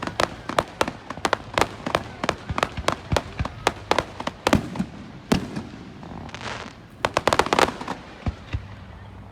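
Fireworks going off: many sharp bangs in quick, irregular succession, a brief hiss about six seconds in, then a fast rattle of pops before it eases off near the end.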